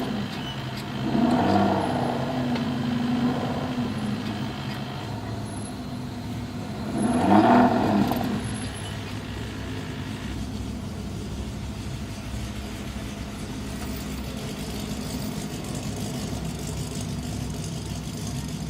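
Aston Martin DB9's V12 engine idling and revved twice: a blip about a second in that hangs for a couple of seconds before settling, and a sharper, louder one about seven seconds in. After that it idles steadily.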